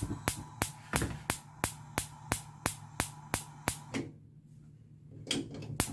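Background music with a steady clicking beat, about three beats a second, over a low hum. The beat drops out for a moment about two-thirds of the way through, then returns.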